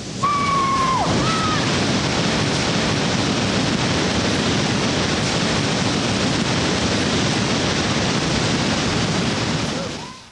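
Steady roar of whitewater rapids and falling water, with a brief high whistle-like tone near the start. The roar fades out near the end.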